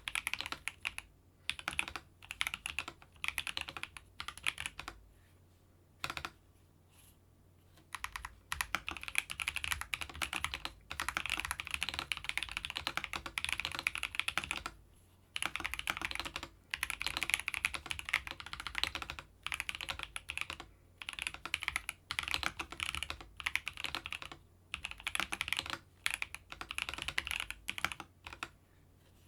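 Typing on a Keychron V3 Max mechanical keyboard with Keychron banana switches: quick runs of key clicks and clacks in bursts of a few seconds, broken by short pauses, with a longer pause near a quarter of the way in.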